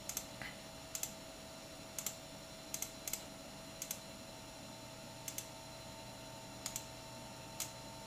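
Computer mouse clicking at an uneven pace, about once a second, often as quick double clicks, over a faint steady electrical hum.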